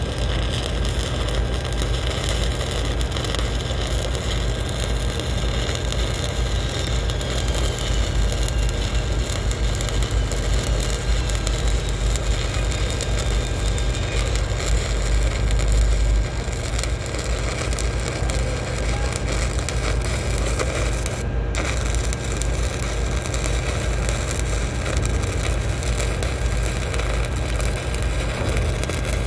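Shielded metal arc (stick) welding with a 1/8-inch 7018 electrode at 127 amps, the arc crackling and sizzling steadily as the bead is run, over a low rumble. The crackle drops out for a moment about two-thirds of the way through.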